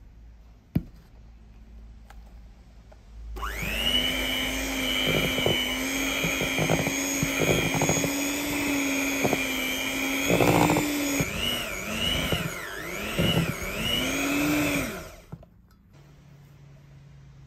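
A sharp click, then an electric hand mixer starts and runs with its beaters in a stiff butter-and-flour dough in a stainless steel bowl. After several seconds of steady running the motor pitch dips and picks up again several times as the thickening dough loads the beaters, then it switches off.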